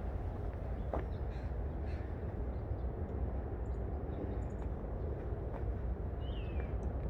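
Steady low outdoor rumble with a few faint clicks, and a short bird call falling in pitch about six seconds in.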